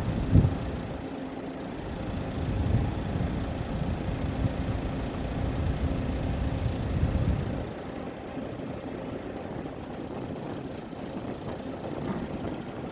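Jet engines of a twin-engine widebody airliner at takeoff power: a low rumble with a steady hum in it, dropping off after about seven and a half seconds as the plane lifts off and climbs away. One sharp thump about half a second in.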